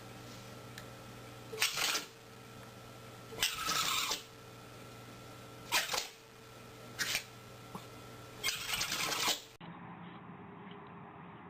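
A pet animal sneezing about five times in a row: short, sudden, breathy bursts a second or two apart.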